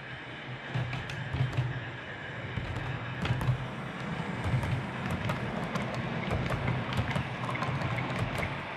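00 gauge model train running along the track: a steady low motor hum with many light, irregular clicks from the wheels on the rails, the clicks growing more frequent after the first couple of seconds.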